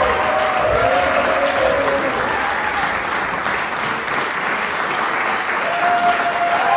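Audience applauding steadily after a string quartet performance, with a few voices audible over the clapping in the first couple of seconds and again near the end.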